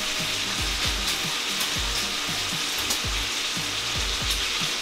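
Food frying in a pot, a steady sizzle, under background music with a low thudding beat.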